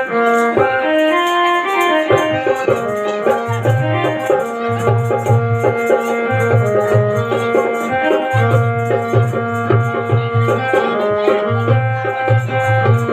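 Music: a melody of held notes over a low drum beat that comes in about three and a half seconds in, with light rattling percussion.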